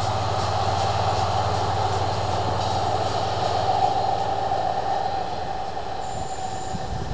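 Diesel multiple unit train running away along the track, its rumble and wheel noise fading slowly, with a steady ringing tone from the wheels and rails over it. The low engine hum dies away about five seconds in.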